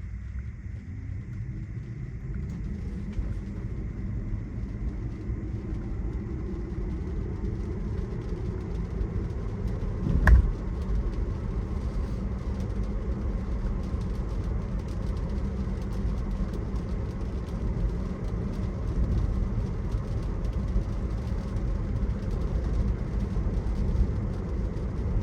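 Tesla on the road heard from inside the cabin: steady tyre and road rumble on wet pavement, with a faint electric motor whine rising in pitch over the first several seconds as the car speeds up. A single sharp thump comes about ten seconds in.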